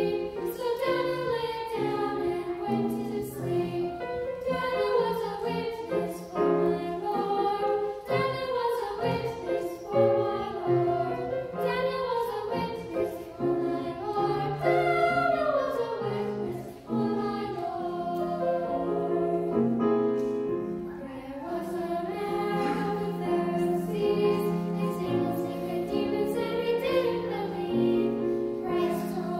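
A choir singing.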